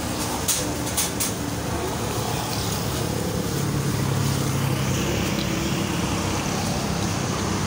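Road traffic passing: a steady wash of engine and tyre noise. A deeper engine hum swells for a second or two in the middle.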